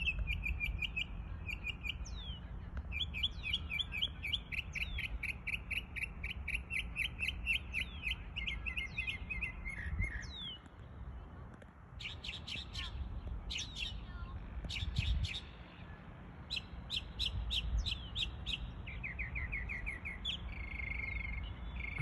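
Northern mockingbird singing a long, varied song of mimicked calls: fast runs of one repeated chirp or trill, then a switch to another phrase, with a couple of short pauses.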